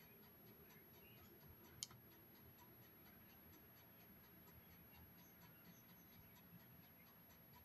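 Near silence: room tone with faint, evenly spaced ticking and one sharp click just under two seconds in.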